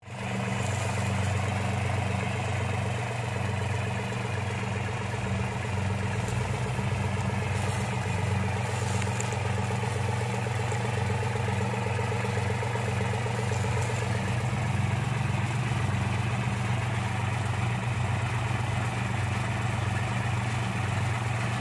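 The tracked rice carrier's engine running steadily without a break. Its low note grows stronger about six seconds in.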